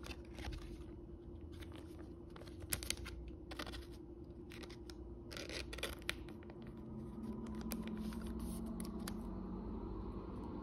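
A baseball card being slid into a thin plastic penny sleeve: light scraping and crinkling of the plastic, with scattered small clicks as the card and sleeve are handled.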